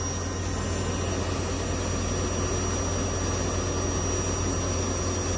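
Electric drill-bit sharpening machine running steadily with a low, even hum.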